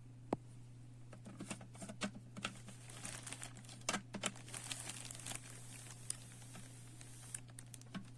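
Irregular crinkling and clicking handling sounds, busiest in the middle, over a steady low hum.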